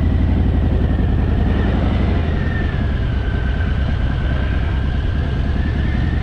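Harley-Davidson Fat Boy's air-cooled V-twin engine running steadily at low speed, with a deep, even engine note and a thin whine wavering slightly in pitch above it.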